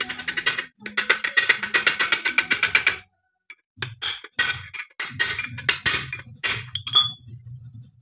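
Background music with a fast percussive beat. It cuts out for about half a second a little after three seconds in, then comes back with a steady low tone under regular high ticks.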